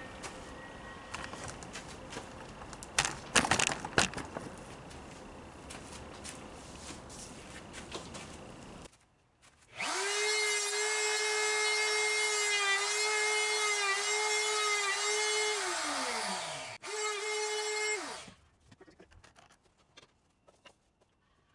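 Knocks and handling at the dovetail jig, then a handheld router running at full speed with a steady high whine. Its pitch dips briefly again and again under load as the dovetail bit cuts through the boards in the jig. Near the end it is switched off and winds down, then makes a short second run and stops.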